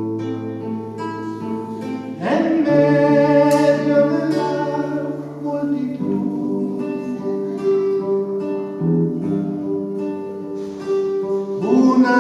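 Music: an instrumental passage of a song with plucked acoustic guitar over sustained chords, swelling louder about two seconds in and again near the end.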